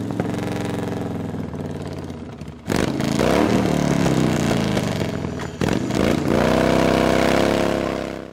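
Harley-Davidson V-twin motorcycle engines running and revving, with the pitch rising and falling. The sound jumps abruptly louder at about a third of the way in and changes again past halfway, then cuts off suddenly at the end.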